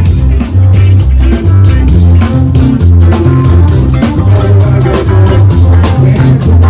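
Band music with drum kit, bass guitar and guitar: a steady beat over a moving bass line, without singing.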